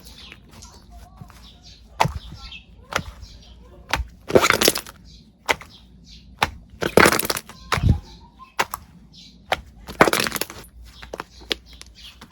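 Slime being worked, giving sharp crackles and pops, with three longer, louder crunching stretches about four, seven and ten seconds in.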